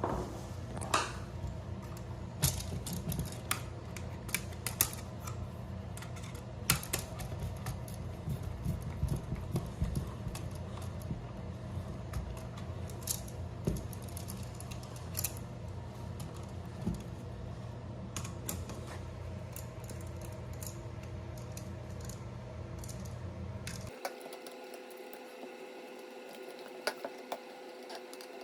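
Scattered small clicks and taps of a screwdriver and copper wires against a new electrical outlet as its terminal screws are tightened down, over a steady low hum that cuts off a few seconds before the end.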